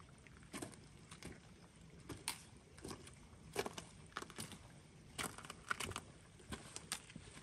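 A hiker's boots and trekking poles on loose glacier moraine rock: faint, irregular crunches and clicks of stones underfoot and pole tips striking rock.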